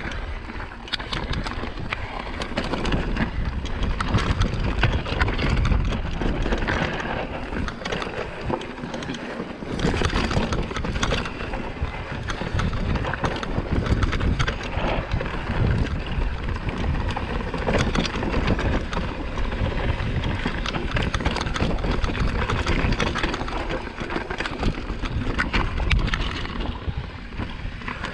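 Mountain bike descending a rocky downhill trail: tyres crunching and clattering over loose stones, the bike rattling with many small knocks, and wind buffeting the microphone in a steady low rumble.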